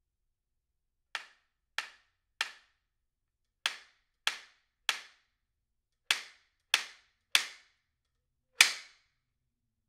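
18-inch maple/ash hybrid slapstick (whip), the medium-pitched one of a set of three, being snapped shut: ten sharp wooden cracks, in three groups of three about half a second apart, then a single louder crack near the end.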